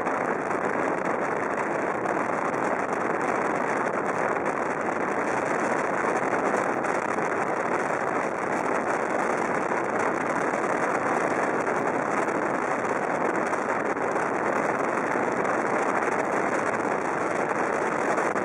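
Steady noise of a car driving along, a constant mix of road and engine sound with no distinct engine note.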